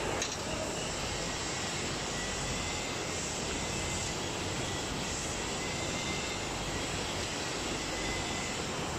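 Steady rushing mechanical background noise with a faint high whine, and a faint click or two as wires and connectors are handled.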